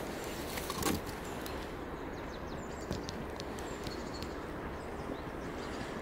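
Tissue paper rustling briefly about a second in as a small alarm clock is unwrapped from it, over steady outdoor background noise with a few faint high chirps.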